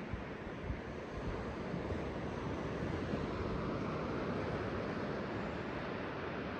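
Ocean surf washing in steadily, with some wind rumbling on the microphone.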